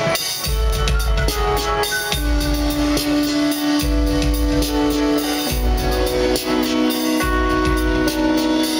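Live rock band playing without vocals: a drum kit beat with kick drum and cymbals under long held chords that change every second or two, heard through the festival PA from the audience.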